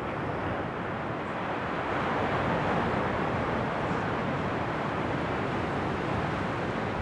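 Steady rush of sea surf and wind, swelling slightly a couple of seconds in.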